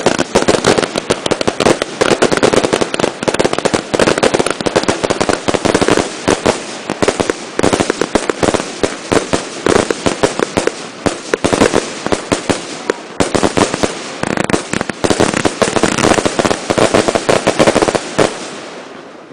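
Fireworks finale: a dense, unbroken barrage of explosions and crackling, many reports a second, that stops abruptly near the end.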